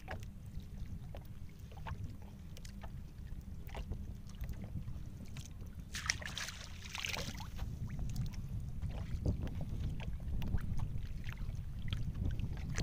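Wind rumbling steadily on the microphone over water lapping against a small boat's hull. About six seconds in comes a short splash and swish of water as hands pull a clump of sea grapes from the sea.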